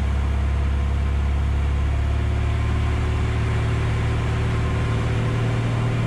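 Piper Arrow's piston engine and propeller droning steadily inside the cockpit on final approach to land. The lowest tones of the drone change about five seconds in.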